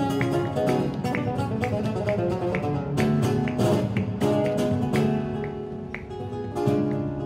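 Spanish (classical, nylon-string) acoustic guitar played in flamenco style, with quick runs of plucked notes broken by sharp strums.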